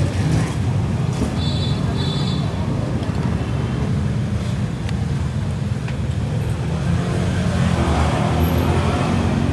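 Steady road traffic noise from passing motorbikes and cars, a continuous low rumble.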